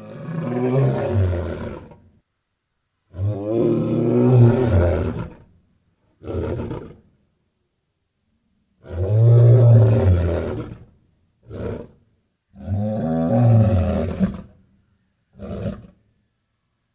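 Lion roaring repeatedly: four long, deep roars of about two seconds each, with a short grunt after the second, third and fourth, and dead silence between the calls.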